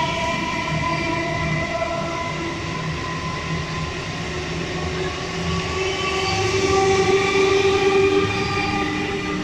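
Indian Railways EMU suburban electric train running past on the near track: a steady rumble of coaches and wheels with several steady whining tones over it, getting louder about six to eight seconds in.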